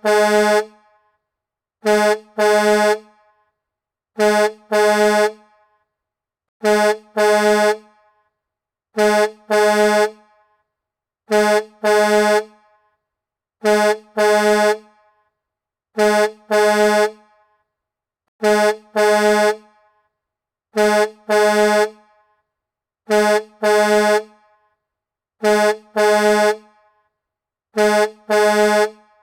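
Semi-truck horn blowing in pairs of short blasts on one pitch, a pair about every two and a half seconds, repeating steadily with silence between.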